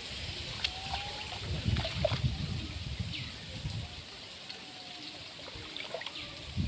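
Shallow muddy flood water trickling and sloshing, louder and lower for a couple of seconds about one and a half seconds in.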